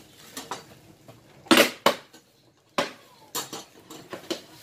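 Metal parts of a stand mixer being handled: a series of sharp clinks and knocks, the loudest pair about a second and a half in and several more over the following three seconds.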